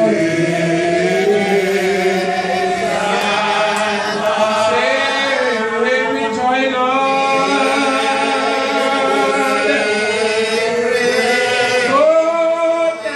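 A man singing a slow devotional song solo into a microphone, holding long notes that glide from pitch to pitch.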